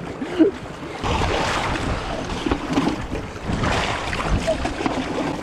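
Rushing, churning whitewater around an inflatable raft running a rapid on a river in high flow, with a low rumble and wind buffeting the microphone. The water noise jumps louder about a second in as the raft hits rougher water.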